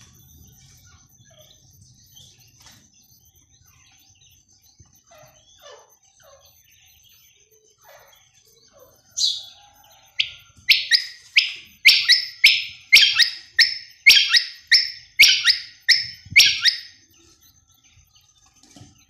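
Caged female common quail calling: after some faint scattered chirps, a loud rapid series of short, sharp, falling calls, about two or three a second, starting about ten seconds in and lasting some seven seconds.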